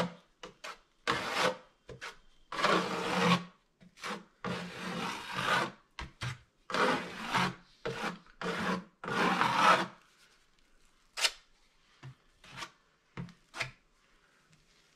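Steel drywall taping knife scraping wet joint compound (mud) over drywall and a metal L-bead edge, in repeated strokes about once a second. In the last few seconds only a few short, light scrapes follow.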